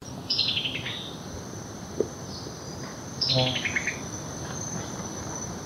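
Summer tanager calling: two quick falling runs of clipped notes, one at the start and one about three seconds in, over a steady high-pitched drone in the background.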